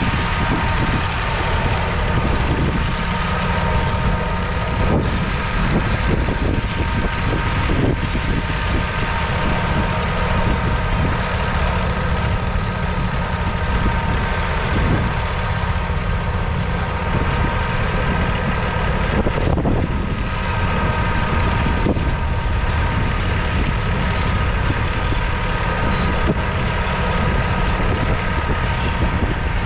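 Kubota B7001D's 0.8-litre three-cylinder diesel running steadily under load while pulling a single-furrow plough through the ground, with a steady high whine. A few brief knocks are heard along the way.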